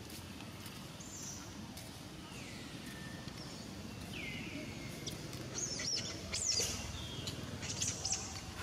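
High-pitched animal calls: a few squeaks that glide down in pitch, then a cluster of quick, sharp falling chirps past the middle and again near the end, over a steady background hiss.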